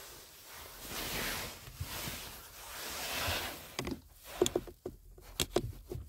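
Soft plastic rubbing and scraping as the cabin air filter housing cover behind a Kia K8's glovebox is handled and fitted back in place. From about four seconds in comes a quick run of sharp plastic clicks and taps as the cover is seated.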